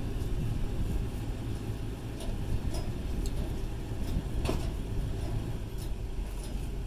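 Steady low hum of the running Toyota Sequoia, with a few scattered clicks from the trailer's tongue jack as it is cranked to lower the camper's weight onto the hitch.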